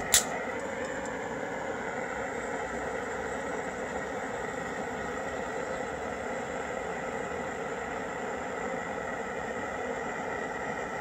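Propane torch burning steadily under a stainless oxalic acid vaporizer, an even rushing hiss while a 4-gram dose of oxalic acid vaporizes into the hive. A sharp click right at the start.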